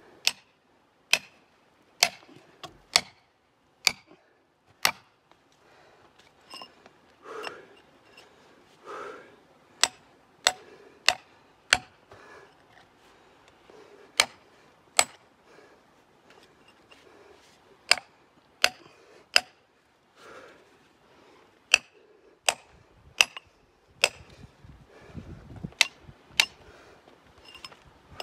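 A steel chisel bar driven into rock: sharp metallic strikes in irregular runs of two to five, with pauses and softer scraping in between.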